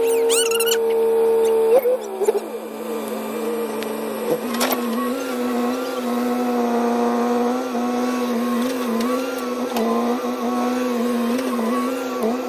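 Battery-powered toy excavator's small electric motors whirring with a steady whine, the pitch shifting about two seconds in and again about four and a half seconds in.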